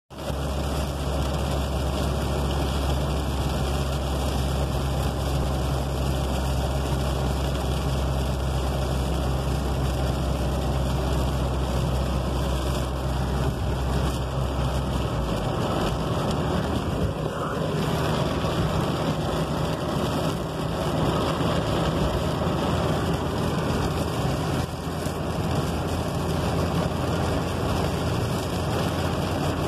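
Inside a moving car's cabin in rain: steady engine and tyre noise on a wet road with a constant hiss. A low drone underneath cuts off about halfway through.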